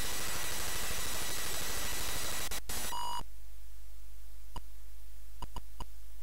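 Atari 8-bit computer loading a file from disk: the harsh, rapid buzzing of the serial I/O data noise through the TV sound. About three seconds in it ends with a short beep as the load stops on an error. A few sharp keyboard key clicks follow as a filename is typed.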